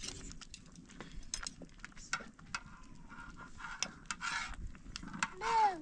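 Metal spoon scraping and clinking in a pan of curd, with scattered small knocks and rubbing. Near the end comes a short cry that falls in pitch.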